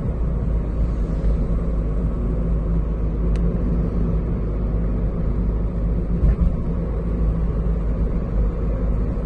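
Nissan Note NISMO e-POWER on the move, with a steady low droning 'go-go' noise under the road noise: the sign of a failing wheel hub bearing.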